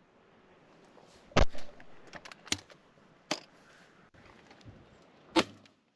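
Shotgun fired at crows from a hide: a sharp shot about five seconds in, the first barrel of a double. Earlier come several sharp knocks and clicks, the loudest about a second and a half in.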